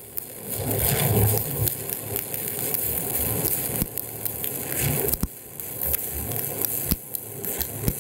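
Stick-welding arc of an E309L-16 stainless electrode crackling steadily as it lays the first pass on a carbon-steel-to-stainless T-joint, with a few sharp pops along the way.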